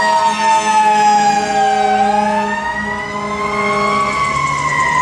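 Fire engine siren wailing, loud and steady in level: its pitch slides slowly down, climbs back up, and starts down again near the end.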